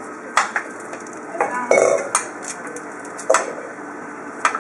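Kitchen clatter of a knife, board and bowl on a hard worktop: about four sharp knocks and clinks, with a short scraping rattle nearly two seconds in.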